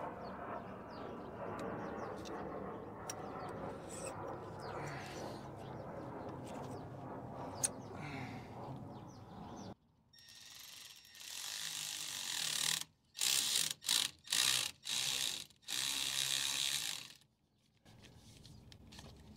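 Hand ratchet wrench clicking in about six quick strokes with short pauses between them, running in a mounting bolt on a Bobcat S250 skid-steer actuator. It starts about ten seconds in, after a stretch of steady low background noise.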